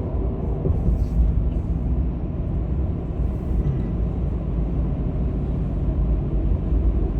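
Steady low rumble of a car driving, heard from inside the cabin: tyre and road noise with the engine underneath.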